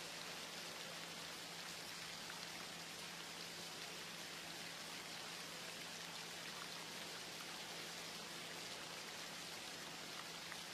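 Steady, even hiss of falling water, with a faint low hum underneath.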